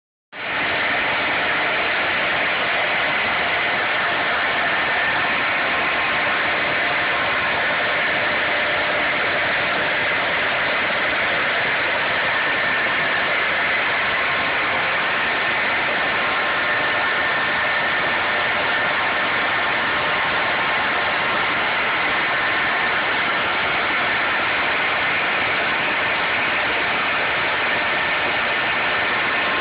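CNC machine running steadily: an even mechanical whir with a faint high steady whine, unchanging throughout.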